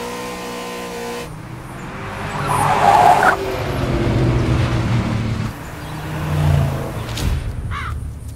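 Car engine revving hard through the gears, with a loud burst of tyre skid about three seconds in.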